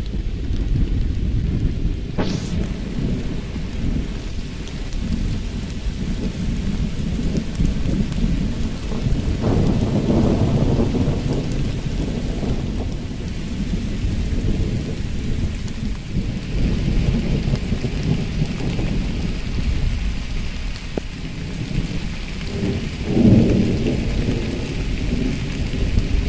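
Wind buffeting the phone's microphone outdoors: a steady low rumble that swells in stronger gusts about ten seconds in and again near the end.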